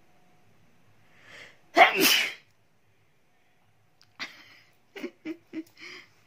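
A woman sneezes once, loudly, after a short inhale, a sneeze brought on by tickling her nose with grass blades. Several short breathy sounds follow in the second half.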